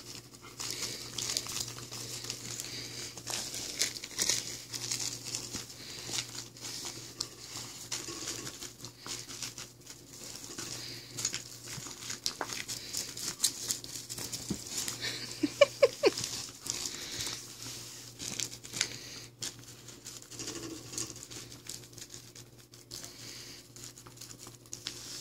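A dog mouthing and chewing a plush stuffed toy: irregular rustling and crinkling of the fabric with small clicks, and a brief run of louder sharp sounds a little past halfway.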